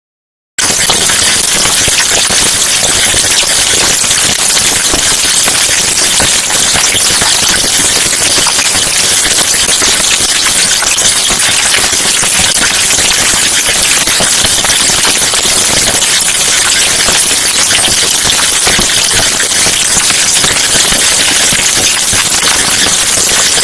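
Loud, harsh, steady noise, strongest in the high treble, starting abruptly about half a second in.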